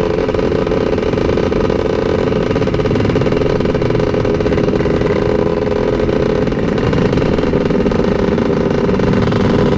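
Motorcycle engine running at steady revs, holding one even pitch throughout.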